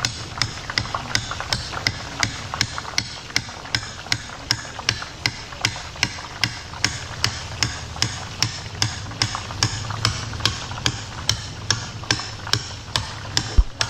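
Metal taps on a perforated boondi ladle, about three a second in a steady rhythm, knocking gram-flour batter through the holes into hot oil. Under them runs the steady sizzle of the boondi frying.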